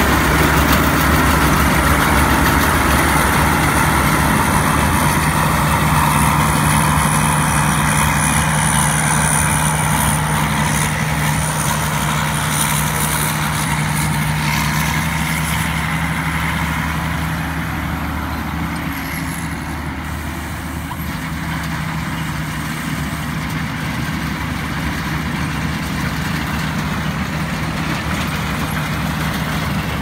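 Tracked rice combine harvester with a Hino turbo-diesel engine running steadily under load as it cuts and threshes, with a faint high whine over the engine. It grows somewhat fainter partway through as the machine moves off across the field.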